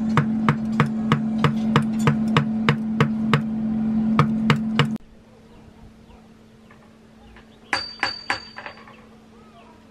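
Hammer blows on metal at forge work, struck in a steady rhythm of about three a second over a steady low hum. About five seconds in, the hammering and hum stop abruptly, leaving a quiet background with a brief cluster of sharp clicks near the end.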